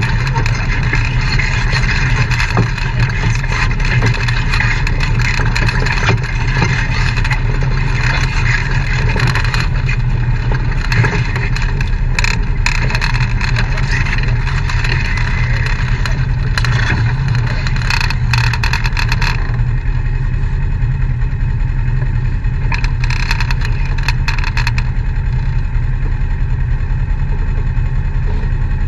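Side-by-side UTV engine running steadily at low speed, heard on board while crawling over a rocky trail, with bursts of rattling and clattering through the middle stretch.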